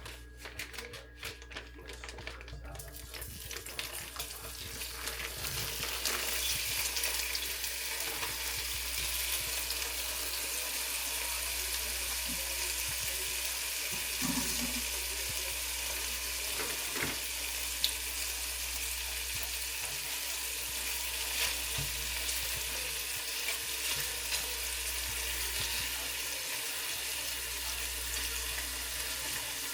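Food frying in a hot pan: a few clicks and knocks, then a steady sizzle that builds over the first several seconds and keeps on evenly, with occasional small pops.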